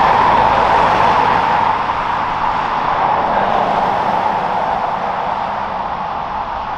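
Turbofan engines of an Airbus A320-family airliner taxiing at low thrust: a steady jet whine over a rushing noise, gradually fading.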